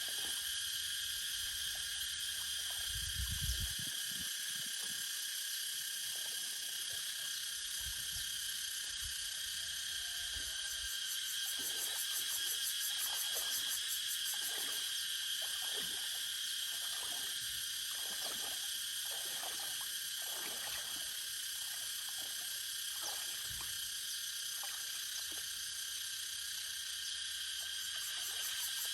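A steady, shrill chorus of insects, with short frog calls repeating through the middle stretch and a low thump about three seconds in.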